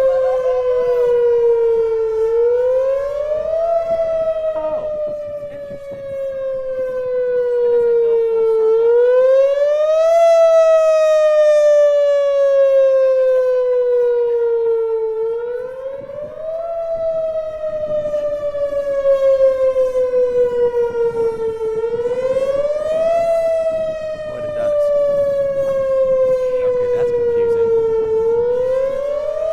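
Outdoor warning siren (tornado siren) sounding a wail during a siren test: its pitch climbs quickly, then slides slowly down, in a sawtooth cycle repeating about every six and a half seconds, five climbs in all.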